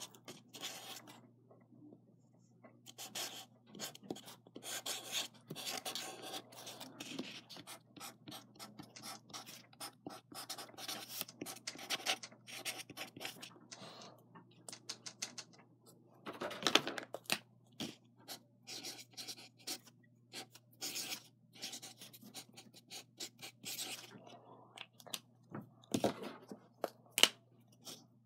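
Close, irregular scratching and rubbing of hands working with a marker pen right by the microphone, in short strokes with a louder cluster of scrapes a little past halfway.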